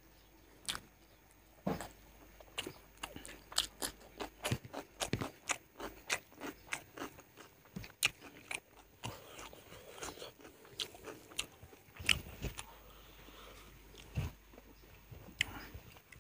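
Close-miked eating sounds of a man eating chicken curry and rice by hand: irregular wet chewing and smacking clicks, several a second, with a few louder crunches.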